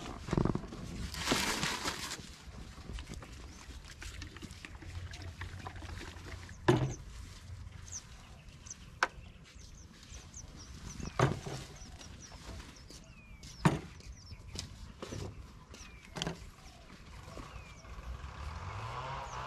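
A few sharp knocks and clicks, spaced a few seconds apart, from handling the sprayer's drum and chemical containers, over a low steady hum. There is a brief rush about a second in, and near the end a motor sound begins, rising in pitch.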